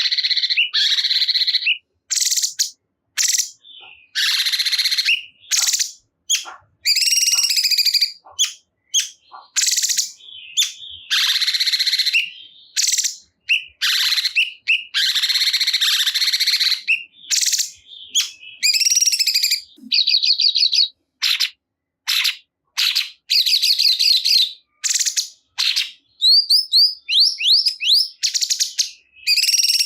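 Cungkok songbird calling in loud, rapid chirping phrases and trills, broken by abrupt short gaps, with quick rising notes near the end.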